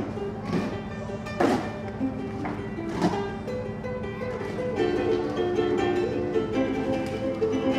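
Ukulele plucked in a run of single notes. In the first half come three sharp knocks from plastic buckets being handled on the stage.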